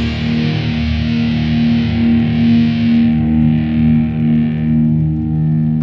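Music: distorted electric guitar playing long held notes.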